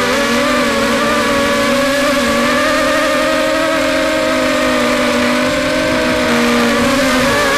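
Brushless motors and propellers of a small RC multirotor, heard from its onboard camera: a steady whining buzz made of several tones. The pitch wavers slightly with throttle and dips briefly near the end, over a rush of wind.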